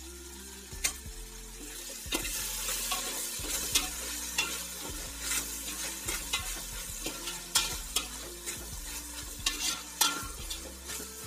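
Chopped vegetables sizzling in hot oil in a large aluminium pot while a metal spoon stirs them, with irregular clicks and scrapes of the spoon against the pot. The sizzle grows louder about two seconds in.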